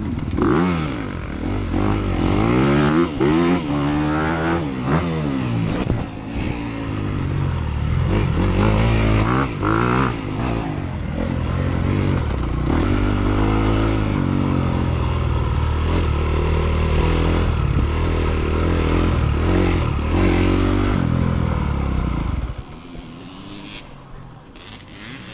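Dirt bike engine being ridden hard, its pitch climbing and falling repeatedly as it revs up and shifts. The engine sound drops away sharply about 22 seconds in.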